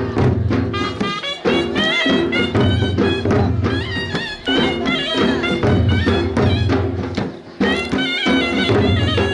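Sharnai (shehnai) playing a quick, ornamented melody over a dhol beating a steady, repeating rhythm.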